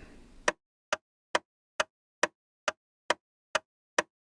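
A run of about ten sharp, evenly spaced clicks, a little over two a second, with dead silence between them.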